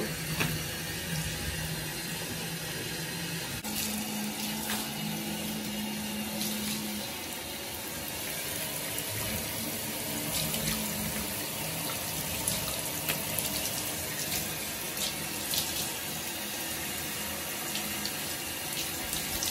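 Water running from a handheld shower head onto a wet Alaskan Malamute's coat and splashing into a bathtub, a steady rush with a faint low hum.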